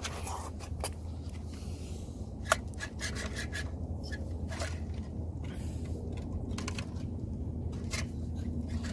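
Hand work on an old fuel pump assembly: scraping and rubbing with scattered clicks, and one sharp click about two and a half seconds in, over a steady low hum.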